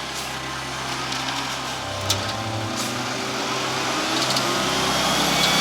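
Heavy diesel truck engines running under load, growing louder as one truck strains to pull a stuck, loaded cement mixer truck out on a chain. Two sharp clicks come about two and three seconds in.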